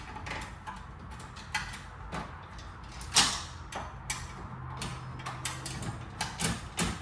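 Irregular metal clinks and taps of a flathead screwdriver being worked against car suspension parts, with a sharper knock about three seconds in and a few quick taps near the end.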